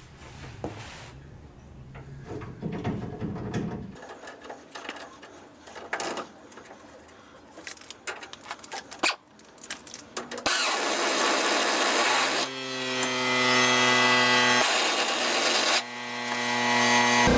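Faint scattered clicks and knocks for about ten seconds, then a shop air compressor kicks on with a sudden loud rush. A steady buzz joins it a couple of seconds later, drops out for about a second and comes back.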